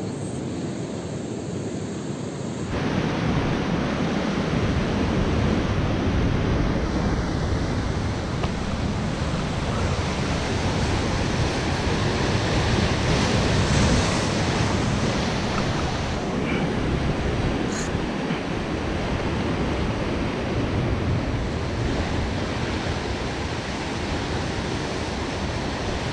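Sea surf washing with wind rumbling on the microphone, a steady dense noise that turns suddenly louder and fuller about three seconds in.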